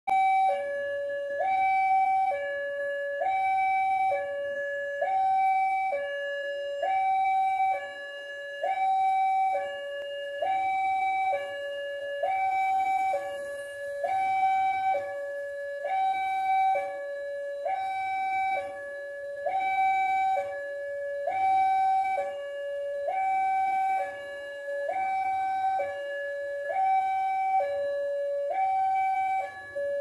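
Railway level-crossing warning alarm sounding a steady two-tone electronic signal, a higher and a lower tone alternating about once a second. It is the warning that a train is approaching the crossing.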